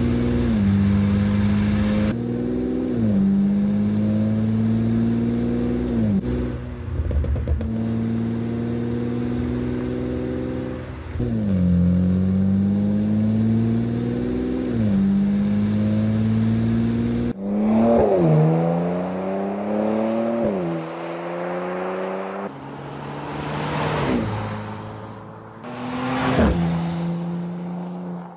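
Porsche Macan engine accelerating through the gears, its pitch climbing and then dropping at each shift several times. Near the end the car passes by twice, the sound swelling and fading quickly.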